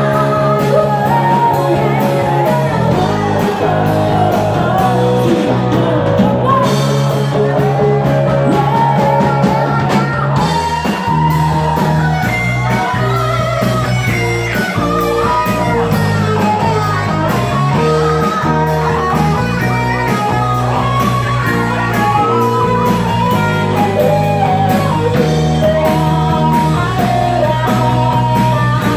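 Live rock band playing loudly: electric guitar, bass and drums with a singer, in a steady beat.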